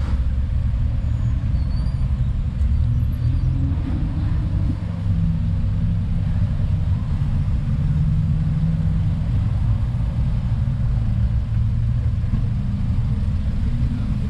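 Steady low rumble of a motor vehicle running, engine and road noise, with the engine's pitch drifting slightly through the middle.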